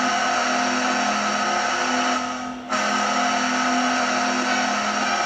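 Buffalo Sabres' goal horn: a long, steady air-horn blast that dips about two and a half seconds in, then a second long blast.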